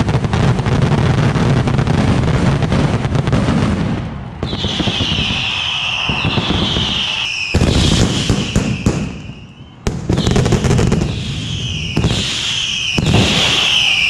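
Mascletà firecrackers going off: a dense, rapid crackle of firecracker strings, then repeated falling whistles over continuing bangs, with a brief lull near the middle.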